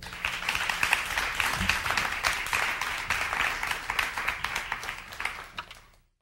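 Audience applause, many hands clapping at once, that fades out towards the end and cuts off to silence.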